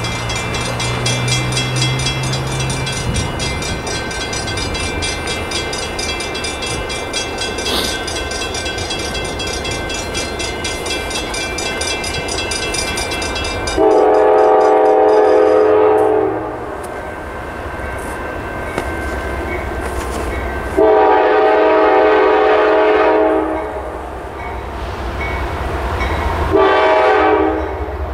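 CSX locomotive air horn blowing two long blasts and then a short one as the train approaches: the opening of the long-long-short-long grade-crossing signal. A low locomotive rumble runs underneath. For the first half, before the horn, there is a fast, even clicking rhythm.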